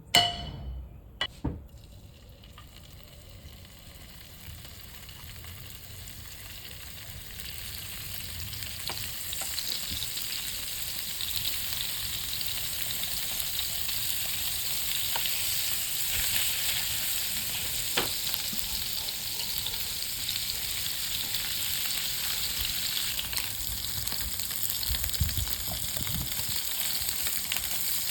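Food frying in a hot pan, a steady sizzle that builds up over the first several seconds and then holds. A few sharp clinks of utensils on the pan come right at the start.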